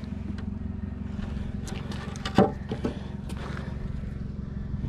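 A steady low engine hum, like a vehicle idling. Over it come a few knocks and clanks from a muddy metal frame, pulled from the creek by magnet, being handled; the loudest comes about two and a half seconds in.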